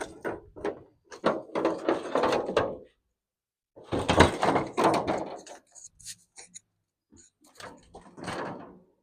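Knocks, rattles and scrapes in three bouts, with short pauses between them.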